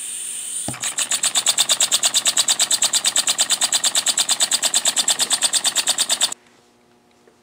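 Small scratch-built rotary-valve model steam engine running fast, a rapid even chuffing of about nine exhaust beats a second after a brief hiss, then cutting off suddenly about six seconds in. The engine is still running in after its modifications.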